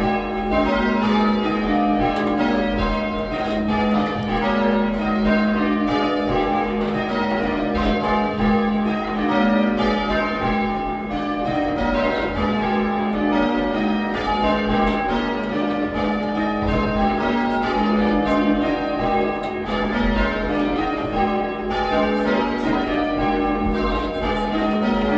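A set of bells rung in changes, one bell struck after another in a steady, unbroken sequence, each note ringing on into the next.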